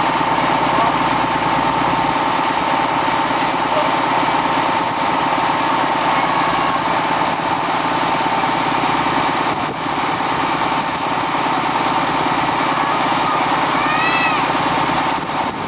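Small engine running steadily at a constant speed, with a rapid even pulse. A few short high chirps near the end.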